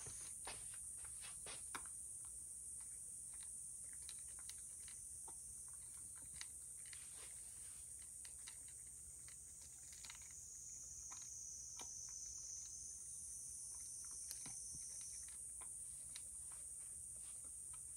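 A cat crunching dry kibble from a ceramic bowl: faint, irregular crunches and clicks, several a second.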